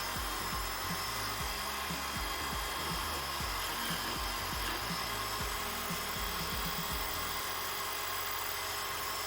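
Homemade wood lathe running steadily while a cutting tool scrapes into a spinning piece of very hard, dense wood, with a steady motor whine and irregular low knocks that die away about seven and a half seconds in.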